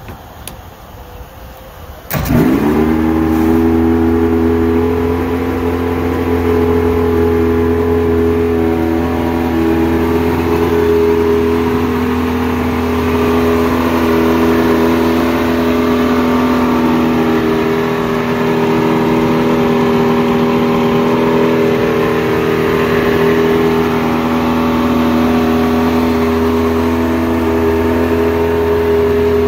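Two-stroke Mercury 125 hp outboard motor, cowling off, firing up about two seconds in. It catches at once, revs up briefly and settles into a steady run.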